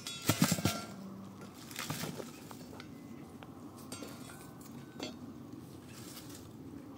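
Hard objects clinking and clattering: a loud burst of clinks with brief ringing about half a second in, a smaller clatter around two seconds, and a single knock about five seconds in.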